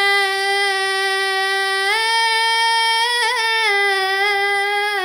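A solo voice holding one long sung note of a Tamil devotional chant, without accompaniment. The note steps up a little about two seconds in, wavers briefly, and drops back down near the end.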